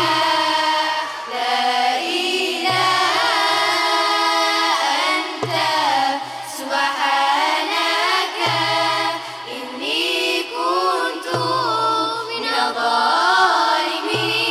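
Girls' choir singing a nasheed into microphones, the voices gliding and ornamenting the melody. A low thump-and-hum comes back about every three seconds underneath.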